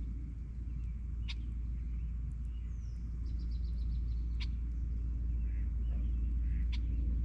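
Birds calling over a steady low rumble: a short falling whistle, then a quick run of about eight high notes, with a few sharp chips scattered through.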